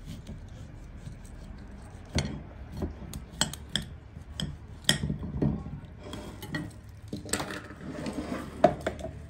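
A kitchen knife cutting an orange in half on a ceramic plate, with scattered sharp clinks and knocks of the blade and fruit against the plate, the loudest one near the end.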